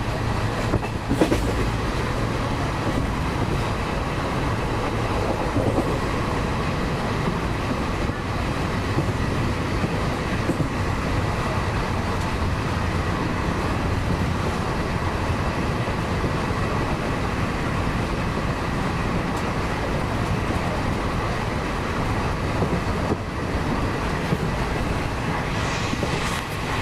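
Passenger train running at speed, heard from inside a coach by the window: a steady rumble of wheels on the rails.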